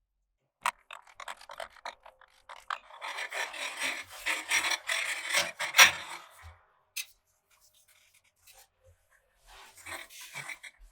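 Rough scraping and rubbing, with a sharp click about a second in, a long stretch of scraping with a sharp knock in the middle, and a shorter bout of scraping near the end.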